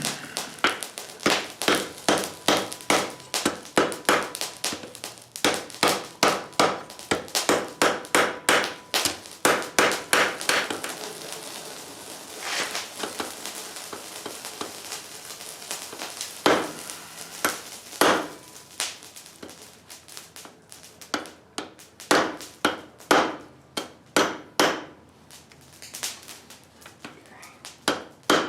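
Hand hammer striking hot flat bar steel on an anvil, in runs of about two to three blows a second. The blows break off for a few seconds in the middle, with a couple of single heavy strikes, then the steady hammering starts again near the end.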